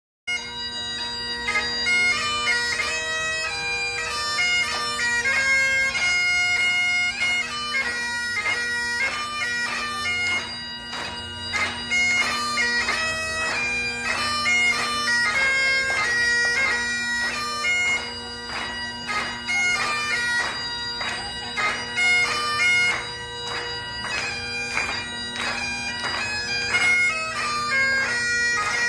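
Highland bagpipes playing a quick, ornamented dance tune over steady drones, starting a split second in.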